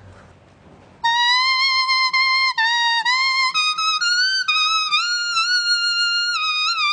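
A banyan leaf blown as a leaf whistle. After about a second of quiet, a clear tone starts and moves between a few held notes, sliding briefly up or down between them.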